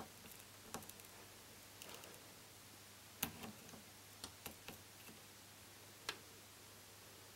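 Near silence with a few faint, scattered light clicks, the loudest a little past the middle: multimeter test probes tapping against the pins of an LCD TV's backlight inverter board.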